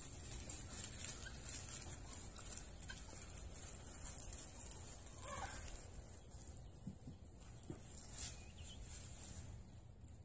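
Backyard chickens clucking and calling now and then over a steady high-pitched hiss.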